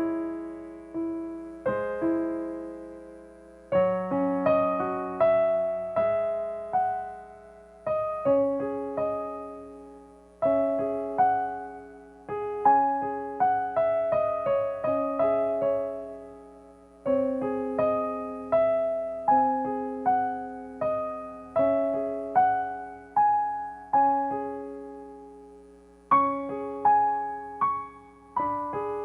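Solo piano playing a slow, gentle improvisation: single notes and chords struck one after another and left to die away over held low notes.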